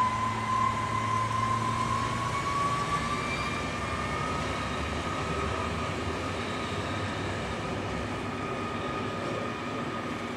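ČD class 854 diesel railcar hauling its passenger coaches away from the station: a whine that rises in pitch over the first few seconds and then holds steady, over engine and rolling noise that slowly fade as the train recedes.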